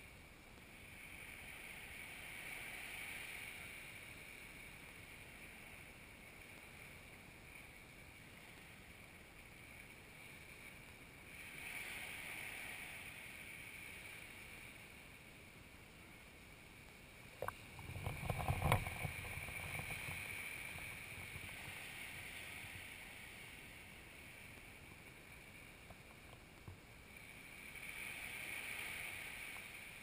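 Small sea waves breaking and washing up a sandy beach, the wash swelling and fading about three times. About two-thirds of the way through, a short burst of knocks and a low rumble is the loudest sound.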